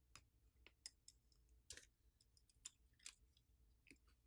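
Near silence with about half a dozen faint, short clicks and taps from hands and a plastic pry tool handling a smartphone's main board and frame as the board is lifted free.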